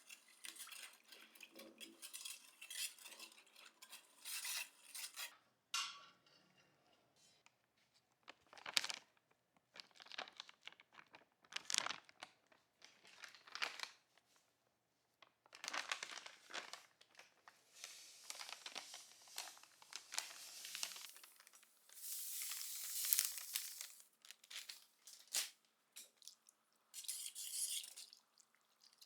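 Irregular scraping and rubbing strokes with light metallic clinks, typical of hand work on small metal parts.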